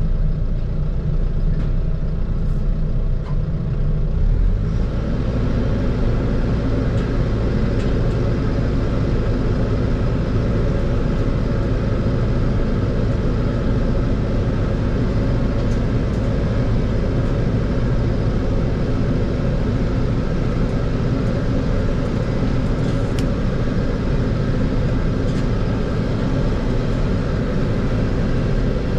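Fendt 412 tractor engine running steadily, heard from inside the cab while working grass silage in a clamp. About five seconds in the noise grows fuller and stays so.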